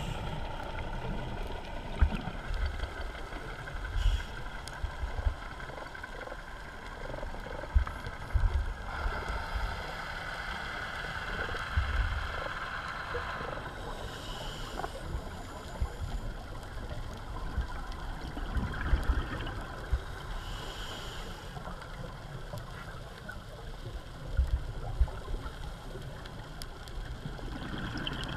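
Underwater sound through a camera housing: a scuba diver's regulator breathing, with bursts of exhaled bubbles every several seconds and scattered low knocks.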